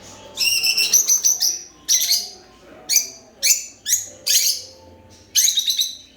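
Lovebirds chirping: short, shrill chirps come in quick runs. A rapid string starts about half a second in, followed by several shorter bursts spaced half a second to a second apart.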